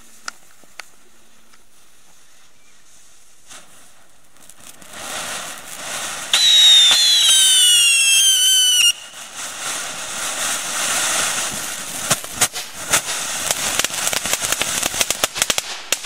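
1998 Moon Scape firework fountain: after a quiet fuse burn it starts spraying with a hiss about four seconds in, then gives a loud whistle that falls in pitch, twice. It then sprays with dense crackling that grows toward the end and stops suddenly.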